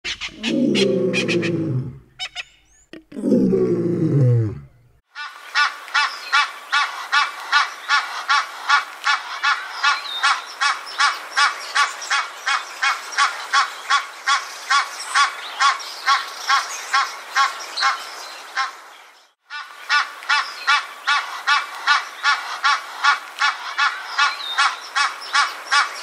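Two long, low, falling sounds open it. Then an Egyptian goose calls in a fast, even run of harsh honks, about three a second, breaking off briefly near 19 seconds before going on.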